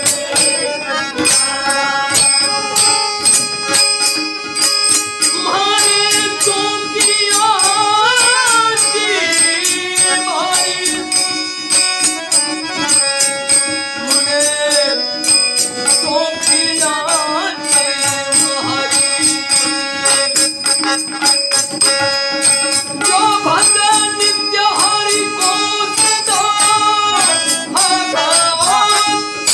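Marathi devotional folk song: a voice sings in phrases over held accompanying tones and a steady rhythm of rattling, jingling percussion, with instrumental stretches between the sung lines.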